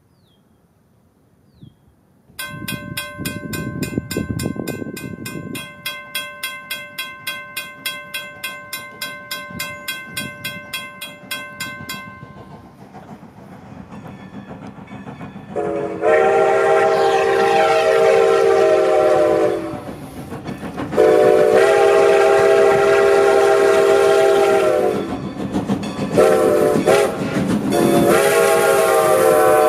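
Railroad grade-crossing bell ringing at about two strokes a second. Then a train sounds a loud multi-note chord warning in long, long, short, long blasts: the standard signal for approaching a grade crossing.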